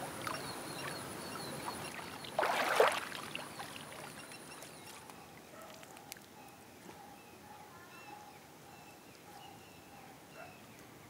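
Lake water splashing loudly for about half a second, as a person moves through it and climbs out of the shallows. Birds chirp repeatedly in short calls throughout, and an insect's high steady whine stops about five seconds in.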